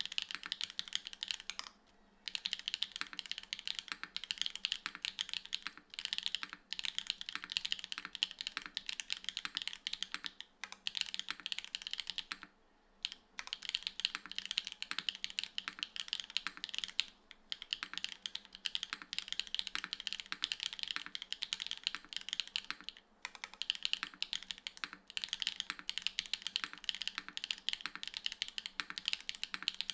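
Fast continuous typing on a Tofu65 3.0 mechanical keyboard with TTRed linear switches, GMK Darling R2 ABS keycaps, a full aluminium plate, PCB gasket mounting and no foam. The keystrokes come in quick runs with a few brief pauses, including one of about half a second near halfway.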